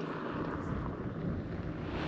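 A vehicle approaching on a gravel road: a steady engine hum under a rushing tyre-and-road noise that slowly grows louder.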